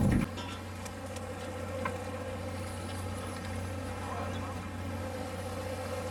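Steady low hum of a sportfishing boat's engine, with a few faint clicks.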